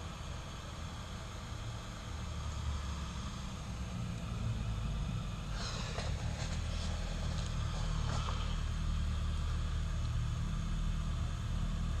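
A steady low hum throughout, with a few light metallic clicks and scrapes about halfway through as steel tweezers touch a flight-controller board on an aluminium plate.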